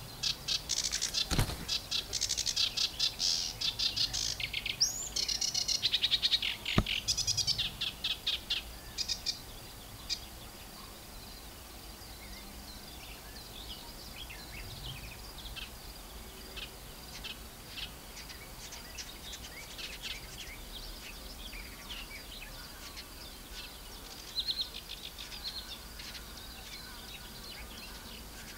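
Sedge warbler chattering right at the microphone, a loud, rapid run of high notes for about ten seconds, with two low thumps as the bird pecks at the microphone's wind protection. After that, only softer, scattered bird notes.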